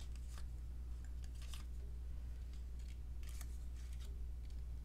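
A few brief, faint crinkles of a thin paper embellishment being handled and tucked onto a scrapbook page, over a steady low hum.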